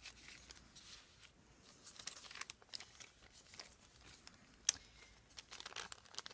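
Faint rustling and crinkling of paper being handled, with scattered light taps and one sharper click about three quarters of the way through.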